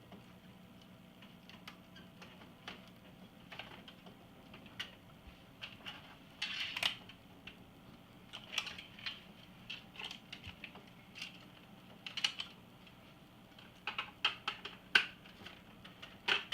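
Irregular light clicks, taps and brief scrapes of plastic and metal parts being handled while an iMac G3 is taken apart, over a faint steady hum.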